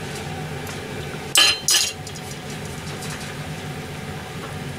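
A stainless steel bowl clinking twice against metal as parboiled chicken hearts are tipped from it into a pot of soup, the two sharp clinks ringing briefly about a second and a half in. A steady low hum runs underneath.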